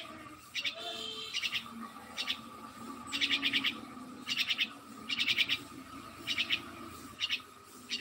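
A bird calling in short bursts of rapid, high chirps, about one burst a second, over a faint steady high tone.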